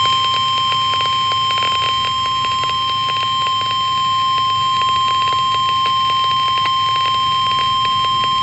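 NOAA Weather Radio warning alarm tone: a single steady tone of about 1050 Hz, held unbroken over faint radio static crackle, signalling that an emergency warning is about to be read.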